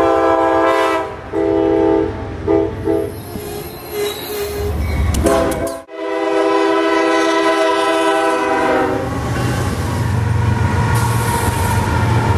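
Full-size diesel locomotive horns: a run of short and medium blasts, then after a sudden break one long blast held for about three seconds. Near the end the horn stops and a low, steady rumble of a locomotive passing close takes over.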